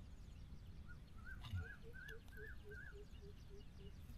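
Faint bird calls: a short run of quick rise-and-fall notes, with a lower note repeating about three times a second beneath it.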